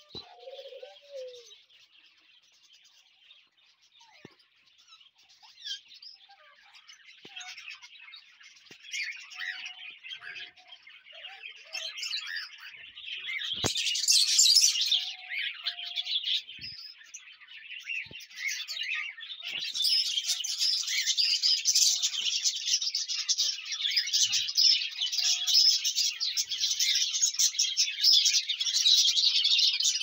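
A large flock of caged budgerigars chattering and chirping continuously. A brief louder burst comes near the middle, and the chatter grows denser and louder through the last third.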